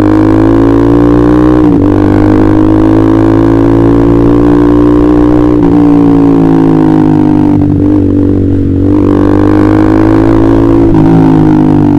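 Honda CBR150R's single-cylinder engine running under way through an aftermarket KJ Pro Performance exhaust: a loud, steady drone whose pitch dips briefly about two, six and eleven seconds in.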